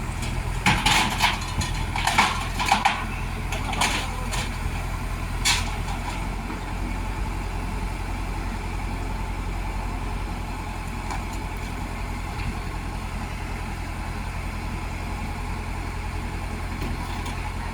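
Heavy diesel engine running steadily at idle. In the first six seconds there are several short, sharp bursts of noise.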